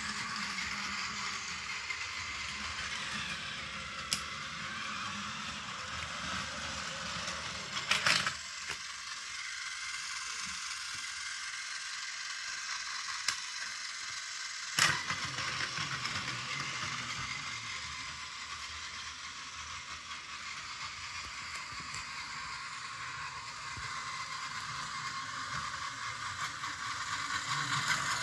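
Battery-powered Plarail Keihan 10000 series toy train running on plastic track: a steady whir of its motor and gears with the rattle of its wheels. The rolling rattle drops away between two sharp clicks about 8 and 15 seconds in, while the train sits held at the station and its lever releases it.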